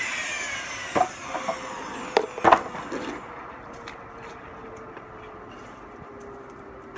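A power saw winds down with a falling whine after a cut, then boards knock against each other a few times as the cut lumber is handled.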